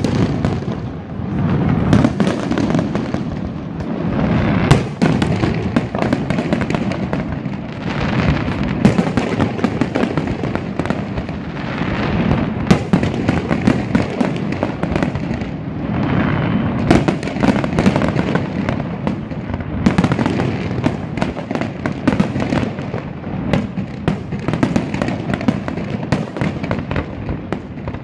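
Fireworks display: a continuous barrage of booms and crackling bangs, many shells bursting close together with no pause.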